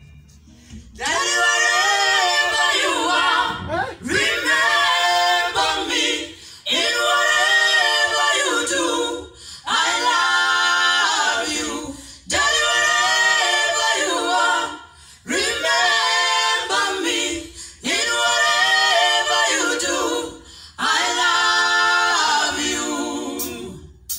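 A small vocal group singing unaccompanied in harmony: about eight phrases of roughly three seconds each, with short breaks between them.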